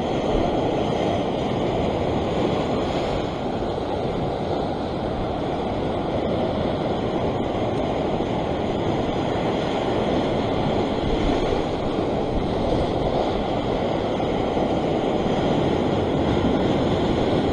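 Sea surf washing and breaking over shoreline rocks in a steady rush, with wind buffeting the microphone.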